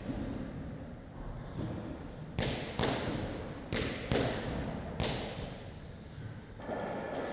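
Steel pull-up rig knocking and clanking during toes-to-bar reps, as the bar takes the swinging athlete and his feet. Sharp knocks with a short metallic ring, mostly in pairs, come about every second and a half from about two seconds in.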